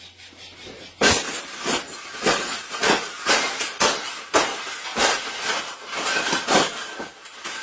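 A rapid, irregular series of loud rattling knocks, about two a second, starting about a second in, like something being struck or shaken hard.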